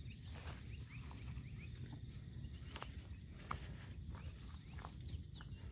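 Faint outdoor ambience: scattered short bird chirps and quick rising whistles over a steady low wind rumble on the microphone.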